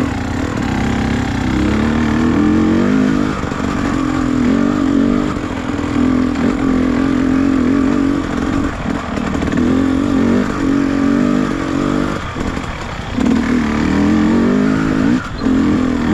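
Trail motorcycle engine running under load off-road, its pitch rising and falling with the throttle. The throttle is let off briefly about five times.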